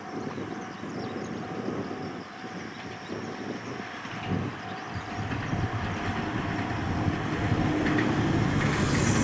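Ohmi Railway electric train approaching, its running noise growing steadily louder through the second half.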